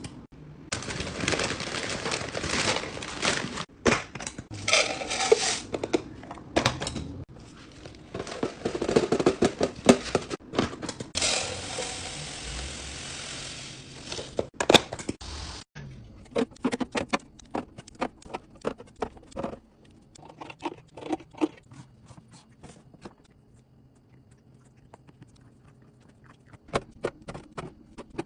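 Kitchen restocking handling: plastic packaging crinkling, dry food pouring into clear plastic canisters, and lids and containers clicking and knocking. About halfway through, panko breadcrumbs pour from their bag with a steady hiss. In the second half there are fewer, separate clicks and knocks.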